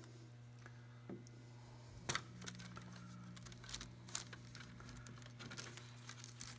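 Clear plastic sheet crinkling in scattered short crackles, starting about two seconds in, as fingers press it along a freshly glued keel. A faint steady hum runs underneath.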